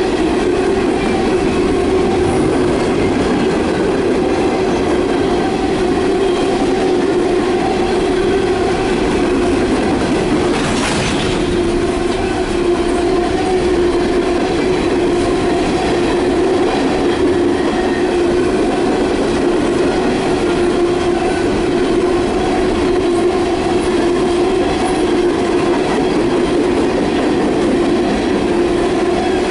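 Empty coal hopper cars of a CSX freight train rolling past close by: a loud, steady rumble and rattle of wheels on the rails, with a steady tone running under the noise.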